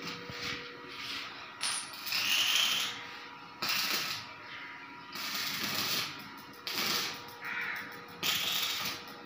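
Electric arc welding on a steel frame: a series of short welds, each a burst of crackling sizzle that starts suddenly and stops after a second or so.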